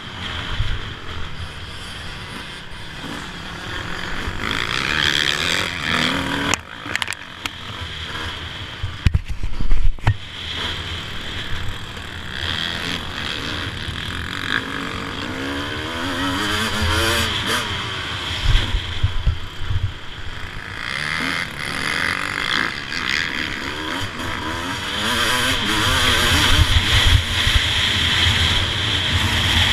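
Suzuki RM250 two-stroke motocross engine heard from on the bike while riding a lap, the engine note rising and falling repeatedly as the throttle is worked through the corners and straights.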